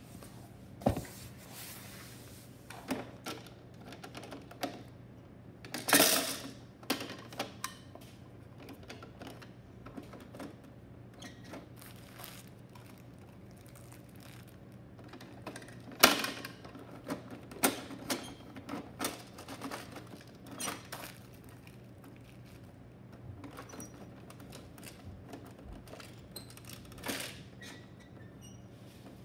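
Hard plastic clicks, clacks and knocks as a Bruder toy garbage truck and its toy bins are handled by hand, scattered irregularly, with the loudest knocks about six seconds in and again about sixteen seconds in.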